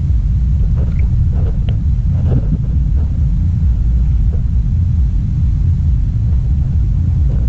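Loud, steady low rumble of wind buffeting the microphone on an open shoreline, with a few faint short sounds about one to three seconds in.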